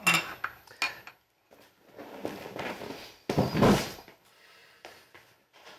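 A bowl and chopsticks being handled and set down on a dining table: two sharp knocks of tableware at the start, then a longer clatter of dishes and cutlery, loudest about three seconds in.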